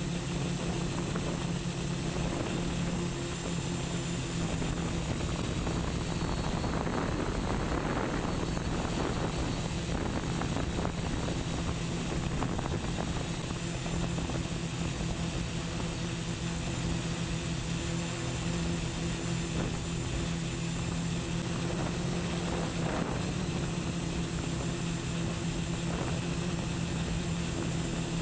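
Octocopter's eight 880kv brushless motors and 10-inch propellers humming steadily in flight, with a thin steady high whine over the hum. A rush of noise swells about seven seconds in and briefly again near the end.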